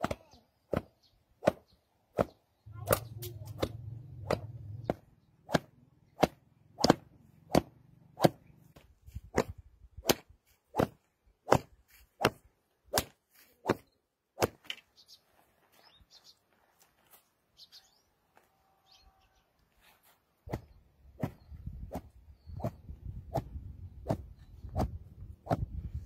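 Thin sticks beating a pile of raw wool to loosen and fluff it: a quick, steady run of sharp whacks, thinning out for a few seconds past the middle before picking up again.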